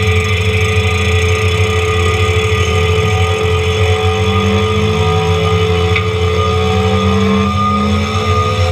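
John Deere 333E compact track loader running hard with its Diamond Mower forestry mulching head spinning: a loud, steady machine drone with a high whine, some tones slowly rising in pitch.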